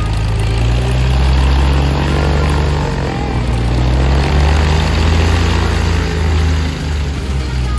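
Small propeller airplane's piston engine running with a steady, loud drone.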